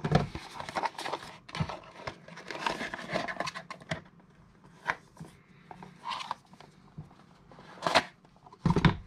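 Hands handling packaging while taking an item out of its box: dense rustling and scratching, then a few scattered clicks and knocks, the loudest near the end.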